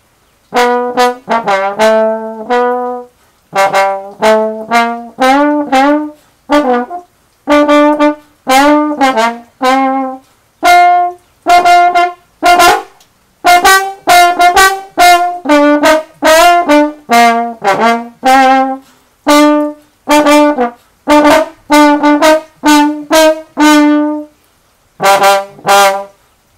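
Slide trombone played solo: a tune of short, separate notes in phrases with brief breaks, some notes sliding from one pitch to the next. The playing starts about half a second in.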